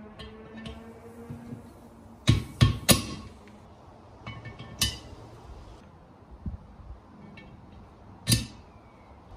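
Bearings being seated into aluminium engine crankcase halves: sharp metallic clinks and taps that ring briefly, three in quick succession about two seconds in, another near the middle, and a hammer tap near the end.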